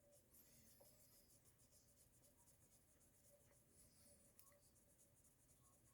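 Near silence, with faint rubbing: a cotton swab wiping over bare-metal foil on a plastic model.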